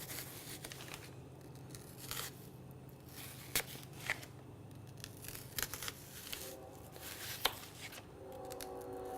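Kitchen knife slicing slowly through a white onion, with a few sharp, irregularly spaced knocks of the blade on the cutting board.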